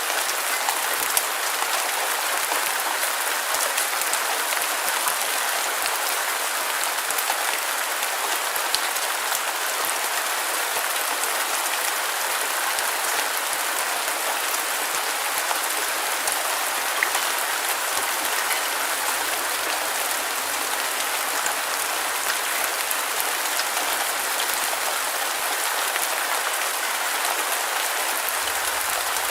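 Steady rain falling on a hard surface, a dense even hiss with scattered individual drop ticks.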